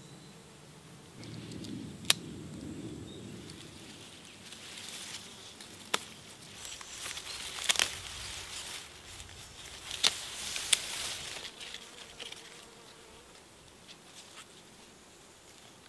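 A bee or fly buzzing close by for the first few seconds, then rustling leaves and grass with several sharp snaps as a daylily clump is pulled up by hand.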